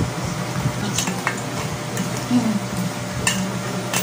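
A few light clicks and clinks of cookie halves and a knife against a stainless steel bowl as chocolate sandwich cookies are twisted apart, over a steady low hum.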